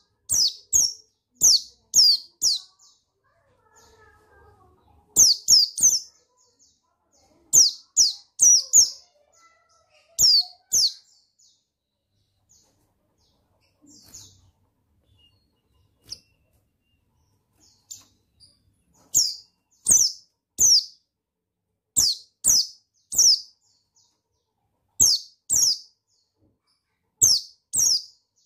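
Buxtoni white-eye (pleci) calling: short, high chirps that slur downward, given in quick groups of two to four, with a quiet stretch of several seconds in the middle.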